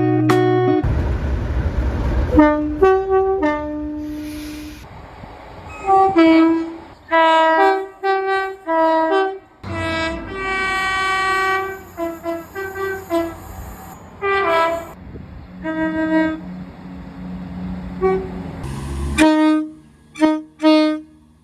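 Train horns sounding a run of short toots and several longer blasts, each a chord of several notes at once, in abrupt successive clips. A passing train's low rumble fills the first couple of seconds.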